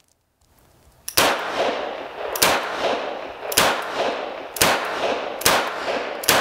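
M1895 Nagant revolver firing 7.62×38mmR military surplus rounds double action with its heavy trigger: six shots roughly a second apart, starting about a second in, each trailing off in a ringing echo.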